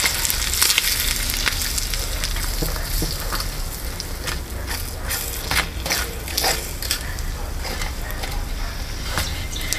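Bacon and egg sizzling in a small frying pan, with a metal utensil scraping and clicking against the pan as the egg is scrambled. The sizzle is a steady hiss, and the clicks come in a cluster in the middle.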